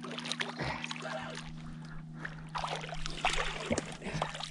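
Hooked channel catfish splashing at the water's surface beside the boat as it is reeled in and grabbed by hand, the splashing busiest about three seconds in, over a steady low hum.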